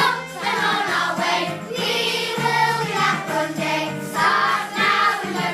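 Children's choir singing a Christmas song together over a musical accompaniment.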